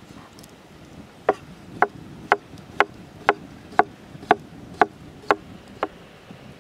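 Knife slicing a pickled cucumber on a wooden board: ten crisp chops, about two a second, each the blade cutting through and striking the board.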